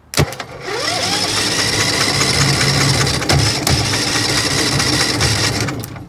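Briggs & Stratton Vanguard 23 HP V-twin turned over on its electric starter with the spark plugs out for a compression test, the starter fed by shorting across the faulty solenoid. A sharp snap as the contact is made, then steady cranking with an even low pulsing and a rising whine as it spins up, for a bit under six seconds before it stops.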